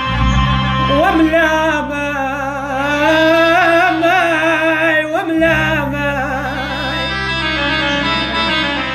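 Iraqi-style mournful singing: one voice holding long, ornamented phrases with a wide vibrato over a steady low instrumental accompaniment, which drops out briefly about five seconds in.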